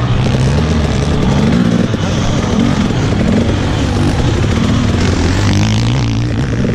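Off-road motorcycle engine running under load, its pitch rising and falling as the throttle is worked.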